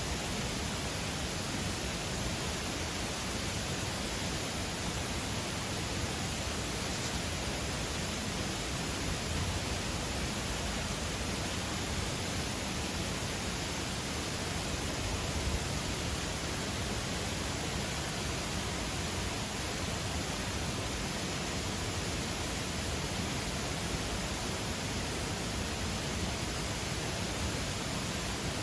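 Mountain waterfall: water falling in a steady, unbroken rush of even noise spread over all pitches.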